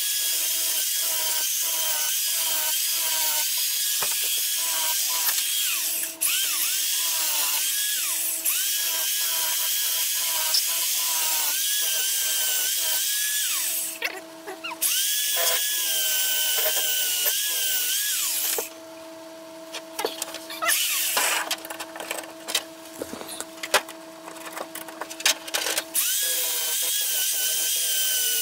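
Electric drill boring into the car's sheet-steel floor pan, its motor pitch sagging and recovering as the bit bites and eases off. The high cutting noise stops for a moment about halfway and again for several seconds in the last third, leaving the motor's hum with scattered clicks.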